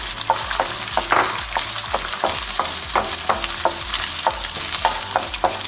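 Eggs sizzling in bacon grease in a nonstick pan while a wooden spatula scrambles them, scraping across the pan in quick regular strokes about three a second over a steady high sizzle.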